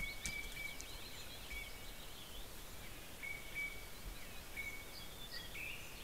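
Songbirds singing in the forest over a steady hiss: quick chirping and warbling notes, and a single whistled note held for about half a second to a second, repeated several times. A sharp click sounds just after the start.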